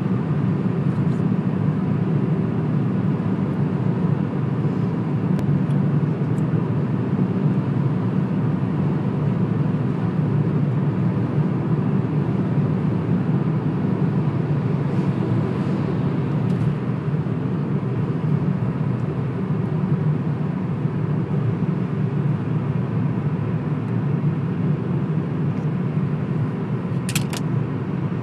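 Steady road and engine noise of a car cruising on a highway, heard from inside the car: an even low rumble of tyres and engine with a faint steady whine over it.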